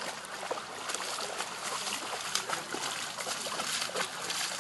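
A Great Dane wading through shallow water, its legs splashing irregularly with each step.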